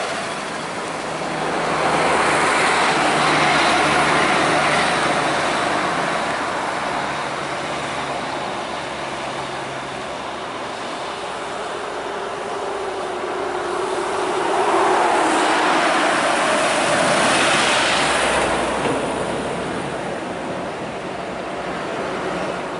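Heavy highway traffic passing close by: a bus and trucks driving past, engines and tyre noise swelling twice as vehicles go by. Midway, one engine note drops in pitch as it passes.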